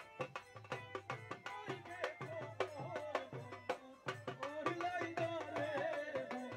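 Bengali dhol drum played in a fast, steady rhythm, with a voice singing a folk melody that comes in about two seconds in.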